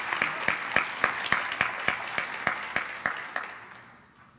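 Audience applauding, with one pair of hands near the microphone standing out at about three claps a second; the applause dies away near the end.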